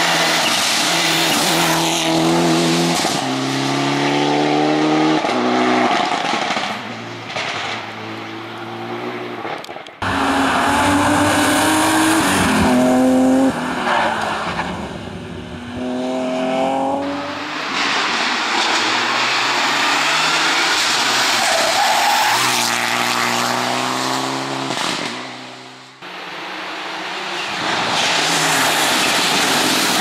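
Rally cars driven flat out on a tarmac stage, among them a Mitsubishi Lancer Evolution and a BMW 3 Series. The engines rev hard, and the note climbs and drops back at each gear change, with tyres squealing through the corners. The sound switches abruptly from one car to the next twice.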